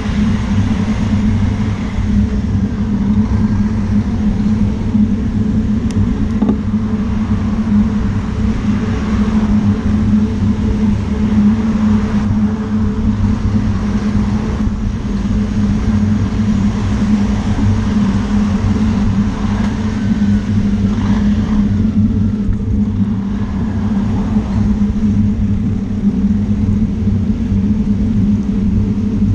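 Road traffic on a wet road, heard from a moving bicycle: a queue of stopped cars and a lorry, with a steady low hum and rumble that stays unchanged throughout.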